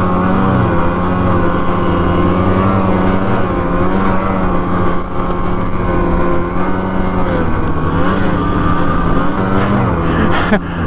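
Snowmobile engine running steadily under way, its pitch dipping slightly and recovering several times.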